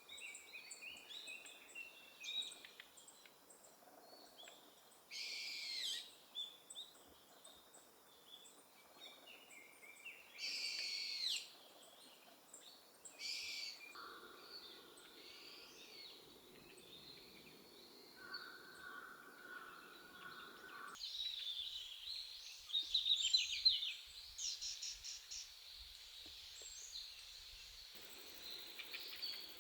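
Small wild songbirds calling: many short chirping notes over a faint background hiss, with a few louder calls sweeping downward in pitch and a quicker run of calls a little past two thirds of the way through. The background changes abruptly several times, as at cuts between separate recordings.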